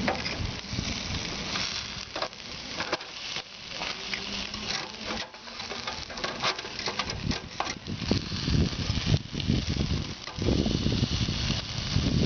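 Chicken pieces sizzling on a charcoal grill, a steady crackling hiss with scattered clicks and knocks as the pieces are turned. A low rumble comes and goes in the second half.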